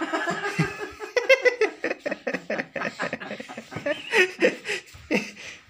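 Laughter and excited voices, a young child's among them, in short broken bursts.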